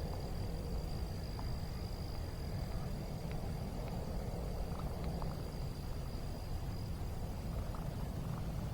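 Outdoor ambience: a steady low rumble with a continuous thin, high insect-like trill over it and a few faint ticks.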